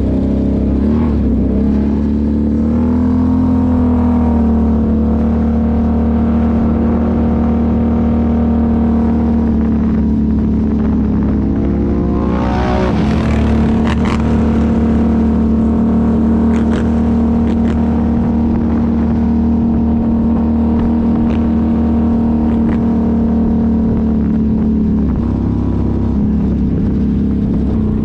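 ATV engine running steadily under way. About twelve seconds in it revs up sharply and briefly, then settles back.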